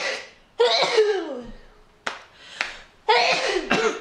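A person's loud vocal outbursts without words, four in a row, the second sliding down in pitch, with two sharp clicks between them.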